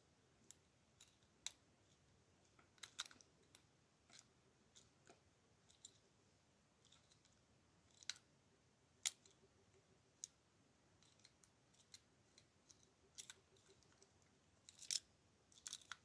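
Lock pick and tension wrench working the pins of a Master Lock lockout padlock: faint, irregular metallic clicks and ticks, with a louder cluster of clicks near the end.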